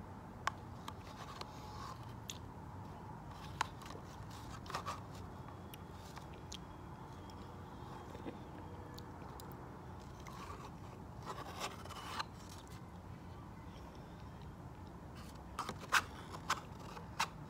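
Metal spoon scraping and clicking against the inside of a plastic yogurt cup in scattered short strokes. A denser run of sharper scrapes comes near the end as the cup is tipped and scraped out.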